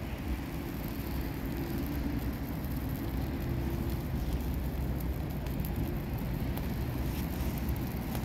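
Dry brush burning fast in a metal drum: a steady low rumble of flames with a few faint crackles.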